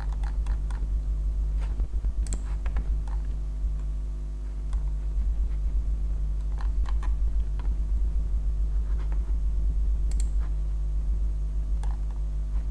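Scattered clicks and short runs of taps from a computer keyboard and mouse, over a steady low electrical hum.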